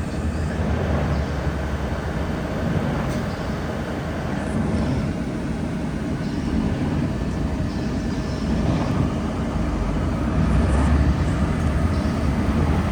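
Steady road noise of a car driving on a wet highway, a continuous low rumble of tyres and engine without breaks.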